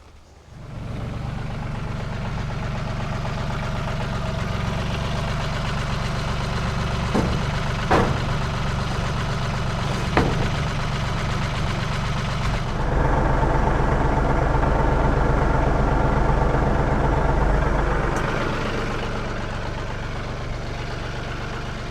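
Farm tractor engine running steadily, with a few sharp metal clanks. About 13 seconds in it revs up and runs louder for about five seconds, then settles back to a steady run.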